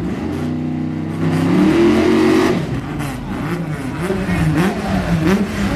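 Drag-race car engines at the start line. One is held at high revs, its pitch climbing steadily for about two and a half seconds. Then an engine is blipped up and down over and over, about twice a second.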